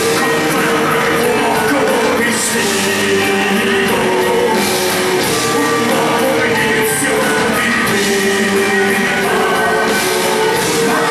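Folk metal band playing live: bagpipes with their drone over electric bass and guitars, and a male vocalist singing into the microphone.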